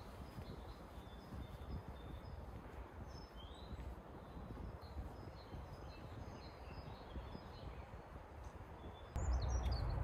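Faint woodland ambience with scattered distant bird chirps. About nine seconds in, it turns suddenly louder with a low rumble and a quick run of high bird calls.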